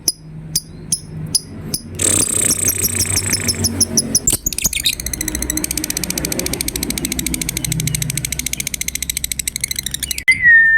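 Lovebird chattering: spaced high chirps, then faster chirps about two seconds in, then a long, fast rattling trill (the 'ngekek' call) from about four and a half seconds until near the end, when a steady high whistle starts.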